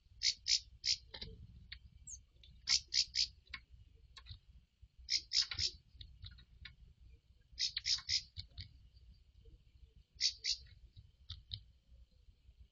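Gray-cowled wood-rail (saracura-três-potes) calling: short, sharp phrases of about three quick notes each, repeated five times about every two and a half seconds.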